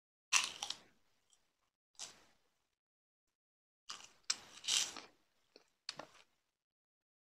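Close-up crunching and chewing of food, in several short separate bites with silence between.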